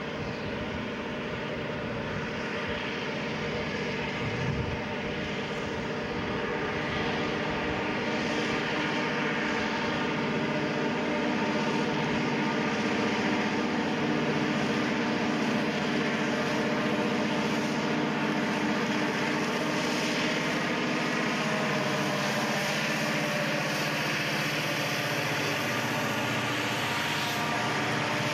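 Several six-axle diesel-electric freight locomotives working under power, their engines giving a steady droning hum that grows louder over the first dozen seconds as they approach, then holds as they pass.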